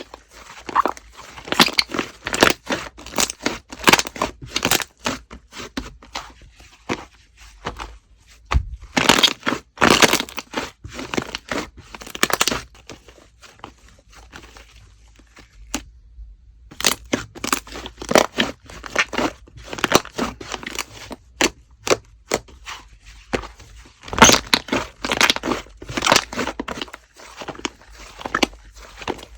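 Watermelon slime being handled, making runs of sharp crackling and popping clicks in irregular clusters, with a brief silent pause a little past halfway.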